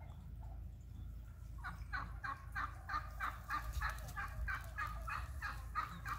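Domestic turkeys calling: a quick run of short repeated notes, about three a second, starting a second and a half in. A steady low rumble lies underneath.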